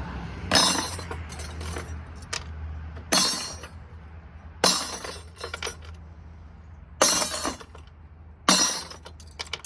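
Small brass and steel light-socket parts and screws being tossed into sorting buckets: five short metallic clatters a couple of seconds apart, each followed by a few smaller clinks, over a low steady hum.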